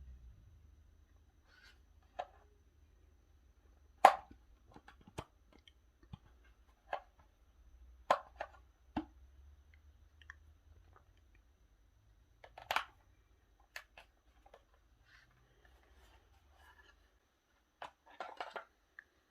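Hands handling a robot vacuum and its packaging while unboxing it: scattered clicks, knocks and rustles. The sharpest knocks come about four, eight and thirteen seconds in, with a quick run of clicks near the end.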